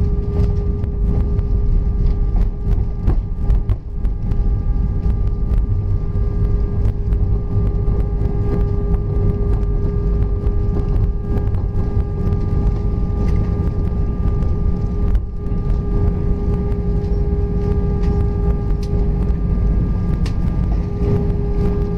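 Airbus A320 cabin noise during the landing rollout, heard over the wing: a steady low rumble from the wheels and airflow, with a steady engine hum and scattered light knocks.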